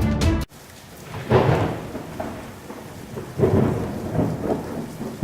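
Thunder rumbling with rain: two rolling swells, one about a second in and another a little past the middle, over a steady hiss. A burst of music cuts off just at the start.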